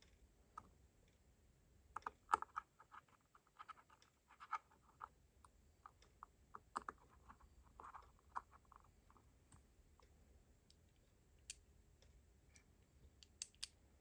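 Irregular small clicks and taps from the parts of a TopB mechanical fidget being handled and fitted together with nylon balls. They come thickest in the first half and thin out to a few clicks near the end.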